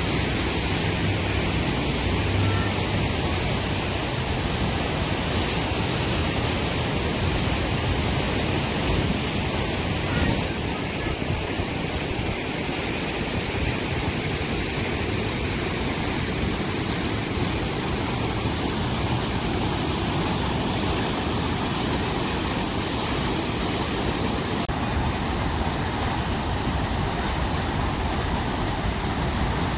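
Huka Falls on the Waikato River: a huge volume of white water rushing through a narrow rock gorge and pouring over the falls, a steady, unbroken wash of water noise.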